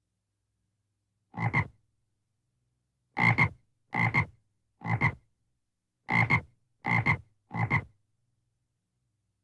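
A frog croaking: seven short croaks, each a quick double pulse. The first stands alone, and the other six follow at roughly one-second intervals.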